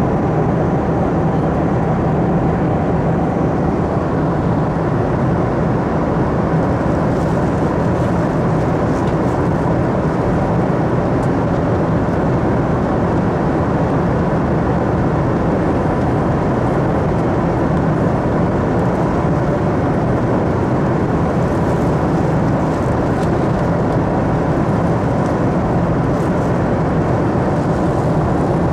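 Steady cabin noise of a Boeing 737-300 at cruise, heard inside the cabin: an even rush of airflow with the drone of its CFM56-3 turbofan engines and a faint steady whine.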